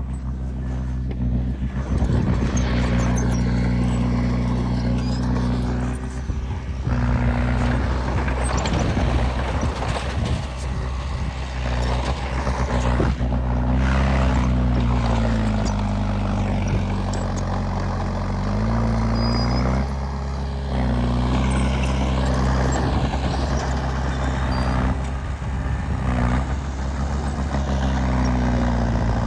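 Heavy diesel earthmoving machine working under load, its engine running steadily with clanking and scraping over it. The engine pitch drops about midway and climbs back up.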